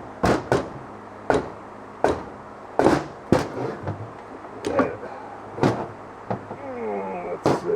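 Sharp metal knocks and clanks, about ten at uneven intervals, from Harley Shovelhead engine parts being handled and set down during a teardown.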